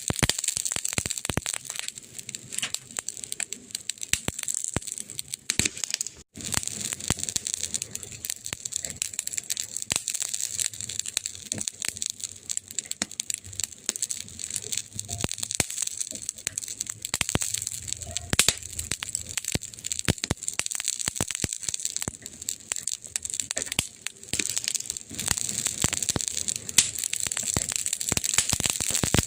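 Wood fire crackling: dense, irregular pops and snaps over a steady hiss.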